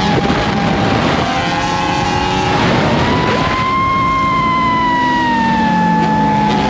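Off-road race vehicle engine running hard at high revs, its high whine drifting gently up and down in pitch over a rough, noisy rumble.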